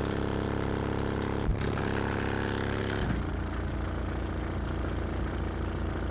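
Very deep rebassed bass notes played through two 18-inch Soundqubed HDX3 subwoofers, heard as a steady low drone with a buzz over it. The sound thins out about three seconds in.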